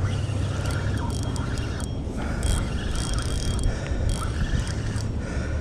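Spinning reel being cranked against a hooked snook, its gears and handle clicking and whirring, over a steady low rumble.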